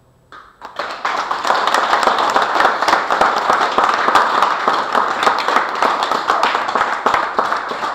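Audience applauding: clapping breaks out about half a second in, rising quickly to a dense, steady patter of many hands.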